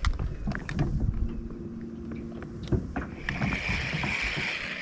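Small fishing boat with its electric trolling motor running: a steady hum for about two seconds, among light knocks and low rumble, then a steady hiss over the last couple of seconds.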